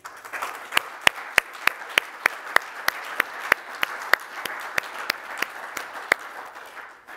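Audience applauding, with one pair of hands close by clapping loud and distinct about three times a second over the rest. The applause dies away near the end.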